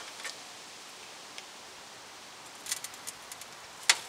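Scattered light clicks and knocks, with a sharper click near the end, over a steady background hiss: a floor jack and jack stand being handled under a car.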